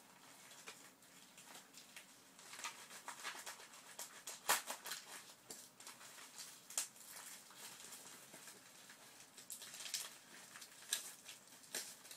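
A bubble-wrapped mailer package being worked open: scattered scratching, crinkling and clicking of the packaging, with one sharp snap about four and a half seconds in.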